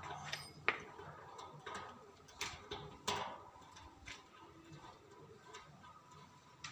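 Light clicks and taps of small plastic and metal parts as a satellite dish's LNB holder clamp is handled and fitted by hand. There are a few sharper clicks, the loudest about three seconds in.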